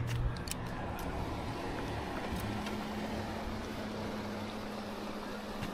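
Boat outboard motor running at low speed, a steady low hum that comes in about two and a half seconds in over an even hiss.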